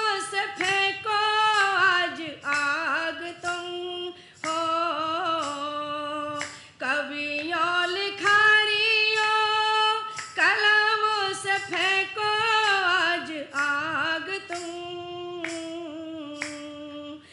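A woman singing a Hindi patriotic song solo into a microphone, holding long notes that bend and slide, with short breaks between phrases.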